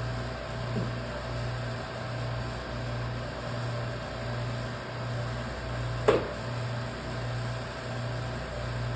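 Electric coin-cell crimping machine running with a low, pulsing hum, about three pulses every two seconds, and one sharp click about six seconds in.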